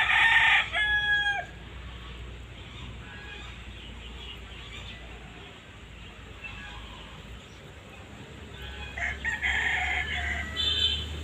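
Rooster crowing twice: one crow right at the start, ending on a held note, and another near the end.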